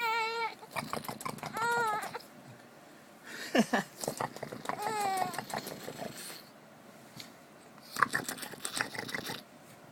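A baby about 20 weeks old squealing and babbling while being tickled: three or four short, wavering high calls, with clicks and rustling between them.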